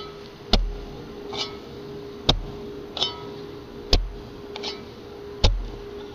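Slow tick-tock rhythm: a sharp knock with a deep thud about every one and a half to two seconds, a softer, higher tick halfway between each pair, over a steady low held tone.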